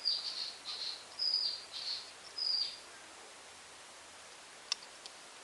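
A bird chirping: a series of short, high, slightly falling calls over the first three seconds, then a single sharp click near the end.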